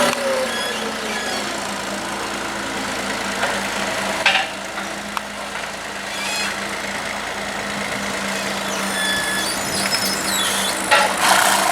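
Tractor engine running with a steady hum, its pitch falling slightly at the start. A short rush of noise comes about a second before the end.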